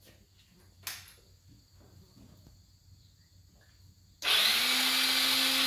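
Electric starter motor of a 2005 Polaris Phoenix's Aeon engine kicking in near the end with a sudden steady whir that rises briefly in pitch and then holds. The starter freewheels without turning the engine over: the starter clutch has failed and never grabs the flywheel.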